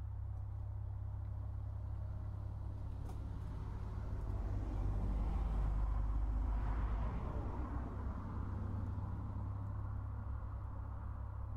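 A road vehicle passing by, its tyre and engine noise swelling for a few seconds and fading away, over a steady low rumble.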